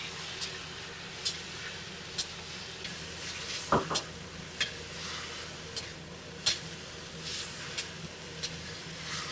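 Stir-frying in a wok: a steady sizzle with irregular clicks of the spatula against the pan, and one louder knock about four seconds in.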